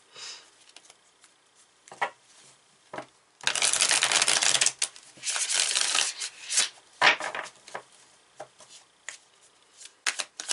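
A deck of oracle cards being shuffled by hand: two runs of rapid card flutter a few seconds in, with scattered short taps of cards before and after.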